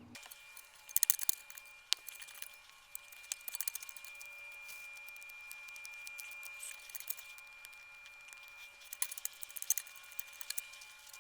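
Weeds being pulled by hand: irregular bursts of rustling and crackling from plants and soil, with clusters about a second in and again near the end, over a faint steady high whine.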